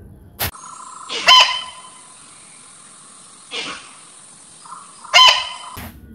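Muntjac (barking deer) barking: three short, sharp calls about two seconds apart, the middle one weaker than the other two.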